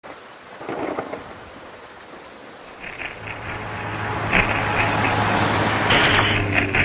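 Electronic TV static hiss with glitchy crackles and a low steady hum, growing louder over the last few seconds.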